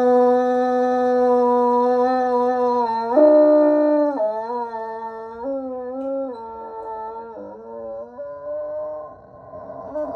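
Bloodhound howling: one long steady note, then about three seconds in the pitch jumps up and the howl breaks into shorter wavering notes that step down and grow quieter, turning rough near the end.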